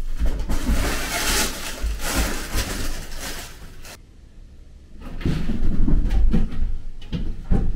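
Fabric cat play tunnel rustling loudly as a kitten climbs over it. After a short pause about four seconds in come soft low thuds and scuffling of two cats play-fighting on carpet.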